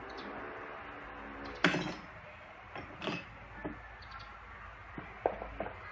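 Clicks and knocks from a Samsung Galaxy Note 3 being handled and opened up, with one sharper knock about a second and a half in and lighter clicks after it.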